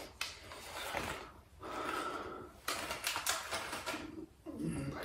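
Ice cream bar's wrapper crinkling and being torn open, in irregular crackly bursts.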